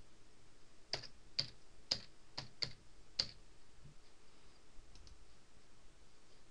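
Computer keyboard keys being typed one at a time: about seven separate keystrokes in the first three seconds or so as a password is entered, then a couple of faint clicks a little later.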